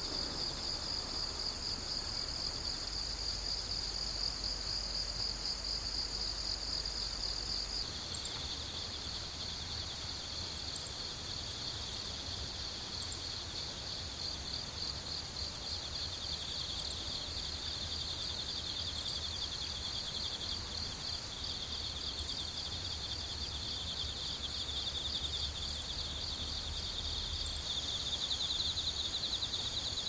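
Chorus of field insects trilling in a continuous high-pitched buzz. The pitch of the chorus steps slightly lower about eight seconds in.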